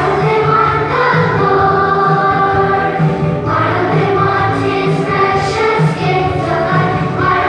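Children's choir singing a worship song with instrumental accompaniment; there is a short break between phrases about halfway through.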